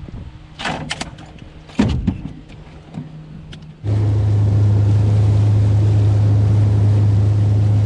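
A few knocks and clatter, then about halfway through a boat motor comes in suddenly, loud and steady, and runs on at a constant pitch.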